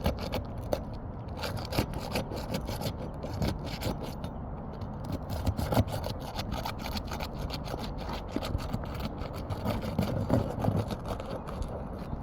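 Asphalt shingles being pried and scraped apart, with many short crackling scrapes and clicks as the sealant bonding strip is worked loose.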